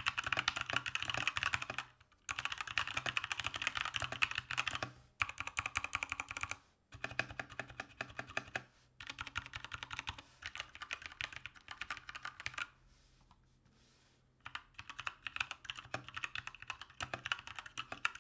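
Typing on a Keychron K2 v2 mechanical keyboard with Gateron Brown switches: rapid runs of key clacks broken by brief pauses, with a gap of about two seconds roughly two-thirds of the way through.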